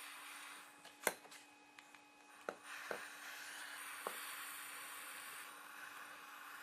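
Fix-a-Flat aerosol can's hose being threaded onto a tire valve stem: four sharp clicks and taps, the first the loudest, over a faint steady hiss.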